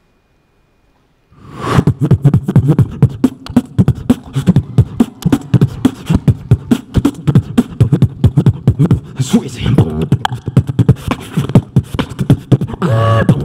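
Human beatboxing into a handheld microphone: fast, dense kick-and-snare rhythms with heavy deep bass, starting abruptly about a second in after near silence. A pitched vocal tone joins near the end.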